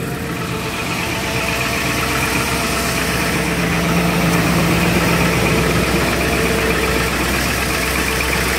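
Ford F-250 Super Duty's 7.3-litre Power Stroke V8 turbo-diesel idling steadily just after a cold start, unwarmed and without a block heater on number 2 diesel, running a little rough.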